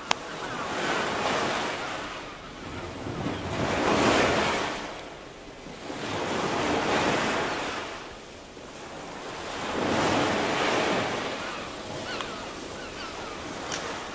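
Surf breaking on a sandy beach: a wash of wave noise that swells and fades about every three seconds.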